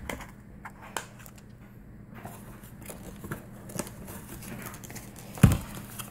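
Paperboard cosmetics carton being handled and opened by hand: scattered short clicks, scrapes and rustles of card, with one louder knock near the end as something is set down on the table.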